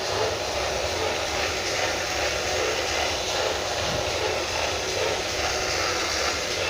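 Test woofer amplifier's speaker putting out a loud, steady hum and hiss, picked up through a hand-held probe on the TV board's audio IC.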